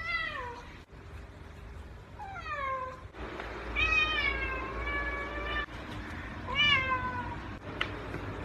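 Domestic cat meowing repeatedly: about four drawn-out meows that fall in pitch, the longest starting about four seconds in and lasting nearly two seconds. A short click comes near the end.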